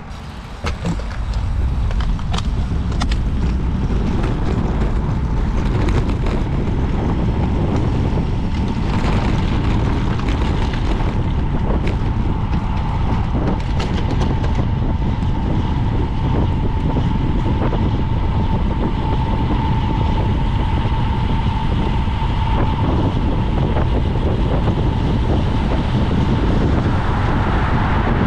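Wind rushing over the microphone of a camera on a road bicycle descending at speed, building up about two seconds in and then holding loud and steady. A few light clicks come early on, and a thin steady whistle runs through the middle.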